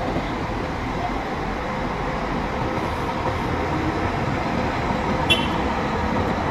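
Three-axle coach bus's diesel engine running with a steady low rumble as the bus moves slowly across a paved yard. A brief high squeal about five seconds in.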